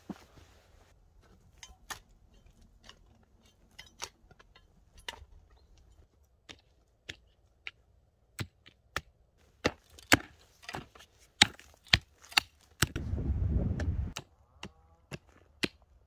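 A small hand digging tool striking into hard, stony soil in sharp separate blows, sparse and faint at first, then louder at about two a second. Near the end comes a low rumbling noise lasting about a second.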